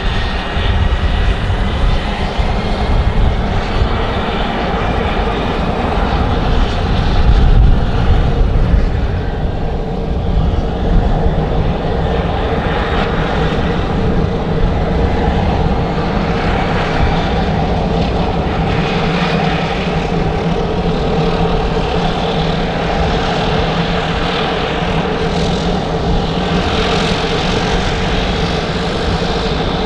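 Pilatus PC-21's PT6A turboprop engine running at low power on the ground, its propeller turning: a steady drone with a faint high turbine whine, swelling briefly about seven seconds in.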